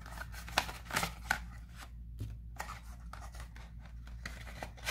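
A small cardboard cosmetics box being opened by hand: scattered rustling and handling, with a few sharp clicks in the first second and a half.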